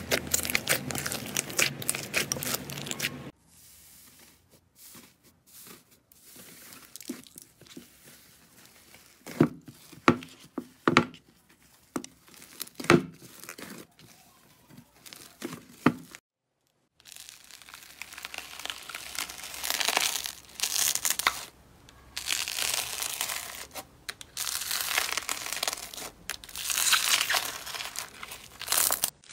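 Hands squeezing and poking slime: dense sticky crackling at first, then sparser separate wet pops and squelches from a soft fluffy slime, and after a short break, dense crinkly crackling from a crunchy, bead-textured slime.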